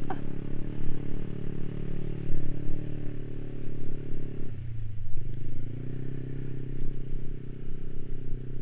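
Yamaha Aerox 155 scooter's single-cylinder engine running under throttle, pulling up a steep dirt trail. Its pitch sags briefly about four and a half seconds in as the throttle eases, then picks back up.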